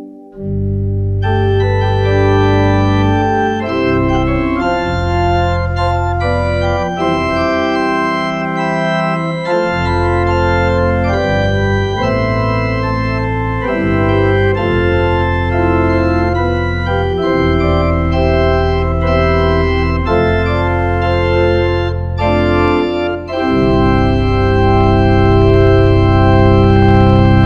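Organ playing slow sustained chords over a deep pedal bass. It breaks off briefly at the start, then the chords change every second or so and it closes on a long held chord.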